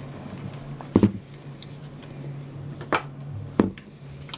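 Scissors cutting through the cloth neck of a baby doll to take the head off: three sharp snips, the loudest about a second in and two more around three and three and a half seconds in, over a low steady hum.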